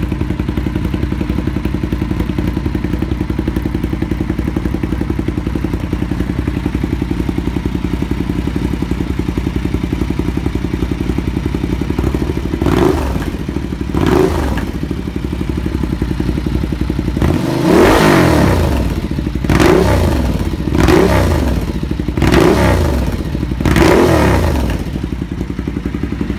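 Ducati motorcycle engine idling steadily through a new exhaust, then revved: two short throttle blips, a longer rev, and four more short blips, each rising and falling back to idle.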